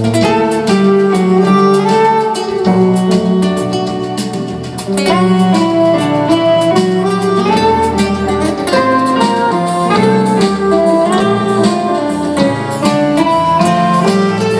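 Live band playing an instrumental passage of a jazz-tinged Italian pop song: saxophone and electric guitar over double bass and a drum kit, with no singing.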